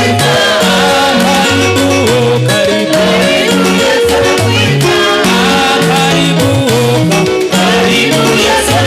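Swahili gospel worship song: singing over a moving bass line and a steady beat.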